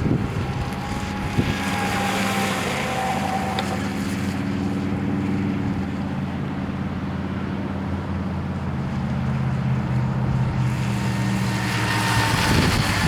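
Brushless electric motor of a Rio EP RC boat running as it drives across the water, a steady pitched whine. Wind buffets the microphone at the start and again near the end.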